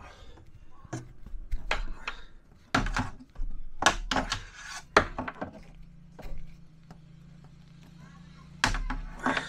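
Braided stainless-steel water supply hose and its fittings clicking and knocking irregularly as the hose is turned to thread it onto a fitting, bumping against the cabinet. A low steady hum comes in about halfway through.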